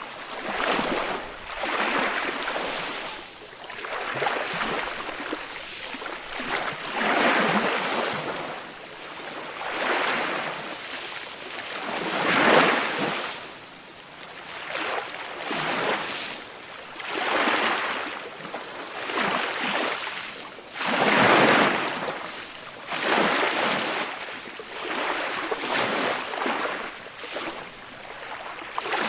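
Waves washing in, in repeated swells of rushing water noise that rise and fall about every two seconds. The biggest surges come about twelve and twenty-one seconds in.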